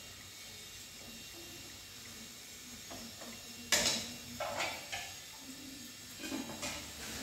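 Cookware being handled on a gas stove: a faint steady hum, then one sharp metallic clink about halfway through and a few lighter clatters of pot and utensils near the end.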